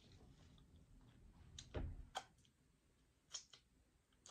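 Quiet, sparse wet mouth clicks and lip smacks of someone eating, with a soft low thump about two seconds in.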